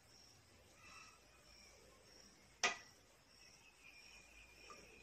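A faint high chirp repeats steadily, a little more than once a second, like an insect calling. About halfway through comes a single sharp click as a small glass dropper bottle of tea tree oil is handled.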